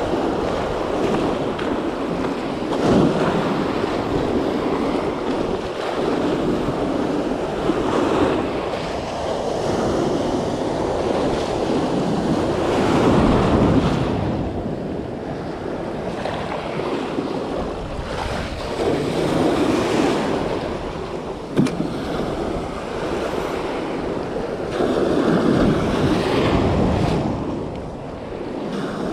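Sea surf breaking and washing over the rocks, a steady rush that swells and eases every few seconds, with wind buffeting the microphone.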